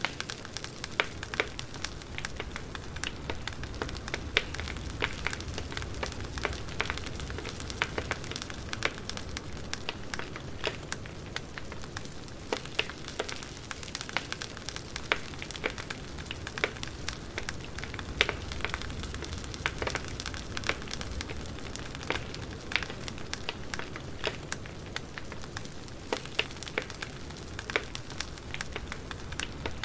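Campfire burning, wood crackling with irregular sharp pops several times a second over a steady hiss and a low rumble.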